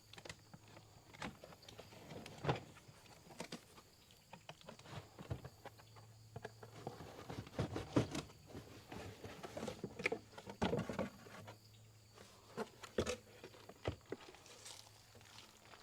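Cardboard box being opened and its packing handled: irregular rustling, scraping and knocks.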